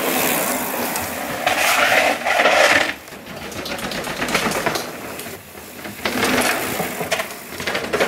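Mountain bike descending a dirt trail: tyres rolling and skidding over dirt and stones, with the rear hub and the bike rattling in a fast ticking. It is loudest a couple of seconds in, then eases and picks up again.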